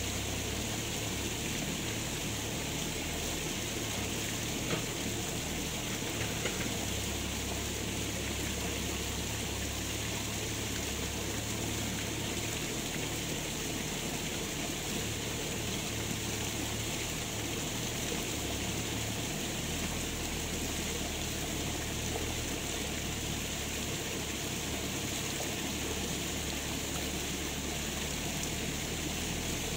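Steady rushing, watery noise with a low hum underneath.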